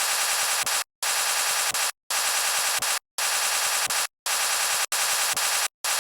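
Snoring played back sped up far past normal speed, heard as a fast-pulsing, hissy noise. It comes in stretches of about a second, each broken off by a brief dead-silent gap, about six in a row.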